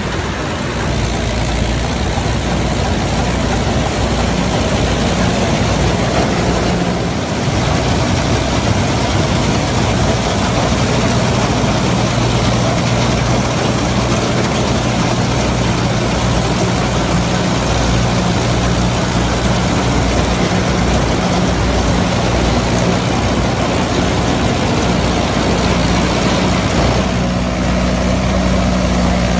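Heavy diesel farm-machinery engine running steadily, its note stepping slightly higher near the end.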